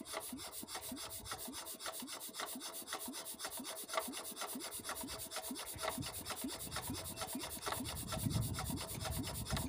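Quick, even rubbing and scraping, about five strokes a second, from hands working at a small single-cylinder diesel pump engine that is not running.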